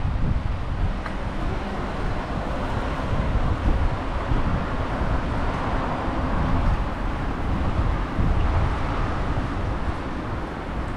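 Strong gusty typhoon wind buffeting the microphone in a low, fluctuating rumble, over a steady rush of outdoor city noise.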